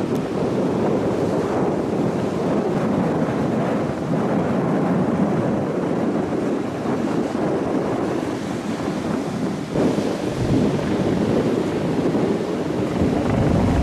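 Wind blowing across the microphone over surf breaking on a pebble shore, with heavier low wind buffeting from about ten seconds in.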